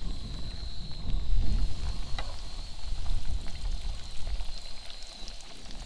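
Seasoned trout fillets frying in a deep pot of hot peanut oil, a faint steady sizzle, under gusty wind rumbling on the microphone, which is the loudest sound.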